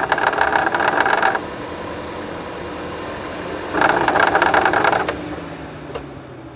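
2013 Chevy Cruze engine idling with a fast rattling knock that swells up twice. The noise is only there at idle and was traced to the water pump, loose on its bottom bolt.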